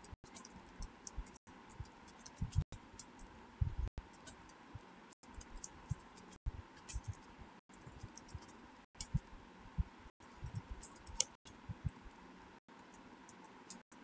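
Computer keyboard being typed on: irregular, quick key clicks and soft thumps as code is entered.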